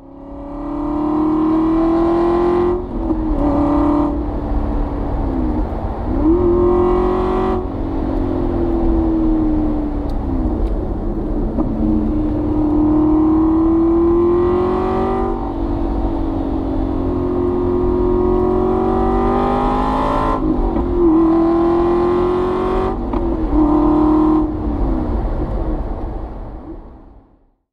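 Aston Martin V8 Vantage's V8 exhaust burbling under way, heard from a microphone in the boot, the car held a gear or two lower than needed to keep the revs up. The engine note climbs and drops repeatedly with the throttle and gear changes, with longer stretches of steady pull in between; the sound fades in at the start and out near the end.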